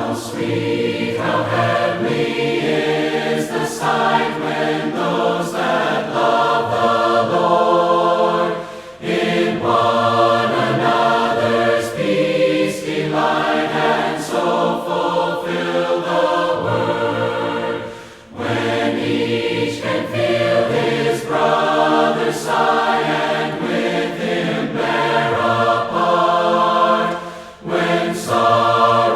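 A group of voices singing a hymn a cappella in parts, in phrases with short breaks for breath.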